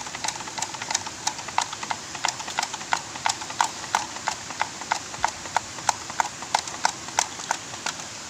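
Regular sharp knocks or clicks, about three a second, over a steady hiss.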